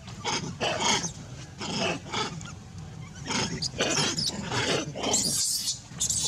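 Baby macaque giving distress screams, about seven short shrill cries, the last one the longest and highest, while adult macaques grab and pull it about.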